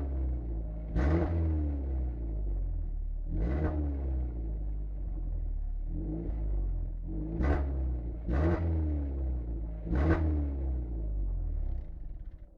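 Renault Laguna 2.0 16V four-cylinder petrol engine on its stock exhaust, idling and blipped several times, each rev rising sharply and falling back to idle. The engine stops near the end.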